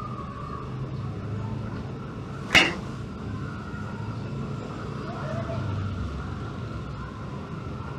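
Steady low background rumble with one sharp, loud hit about two and a half seconds in.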